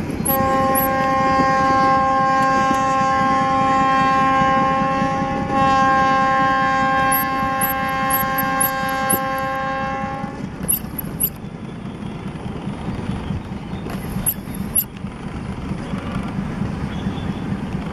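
Locomotive horn of a passing commuter train sounding two long, steady blasts, each about five seconds, ending about ten seconds in. Then the train's wheels rolling and clattering on the track, quieter as the train moves away.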